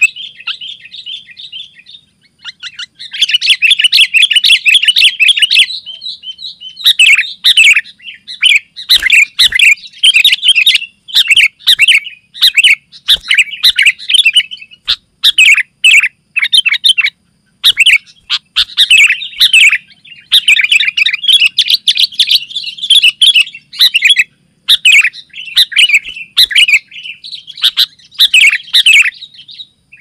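Sooty-headed bulbul (kutilang) singing loudly in rapid, bubbly chattering phrases, one after another with only short breaks. The song pauses briefly about a second in, then resumes.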